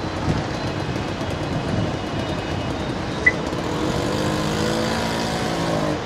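Road traffic noise from a jam of idling and creeping cars and auto-rickshaws. A brief high beep sounds about three seconds in, and a steady engine drone rises over the din from about four seconds in.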